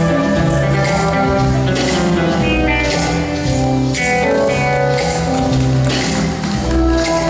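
Slow foxtrot ballroom dance music, with a stepping bass line under held melody notes and a steady beat.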